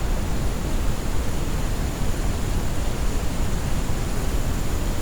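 Steady, unbroken noise-machine hiss, heavier and deeper in the low end than a thin hiss, with no change or events.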